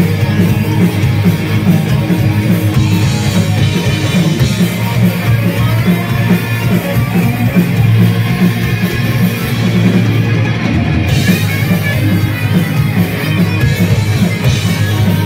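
Live rock band playing: electric guitars and a drum kit, loud and continuous.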